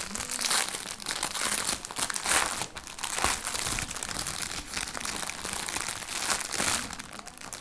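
Packaging crinkling and rustling as a skein of yarn is handled and unwrapped, in uneven swells with short crackles.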